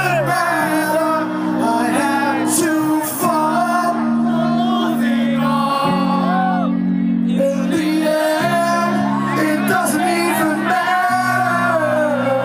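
A live rock band playing electric guitars, with a male vocalist singing into the microphone over sustained low bass notes.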